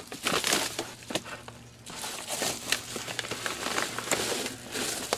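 Padded mailing envelope crinkling and rustling in irregular bursts as it is handled and a clock radio is drawn out of it.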